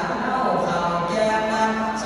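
A man's voice chanting a Thai-Lao su khwan soul-calling blessing in a melodic, sung recitation, holding each note before stepping to the next.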